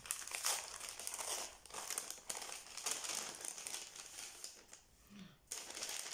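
Kraft paper envelopes and sheets rustling and crinkling as they are handled and slid together, dropping briefly to a lull about five seconds in.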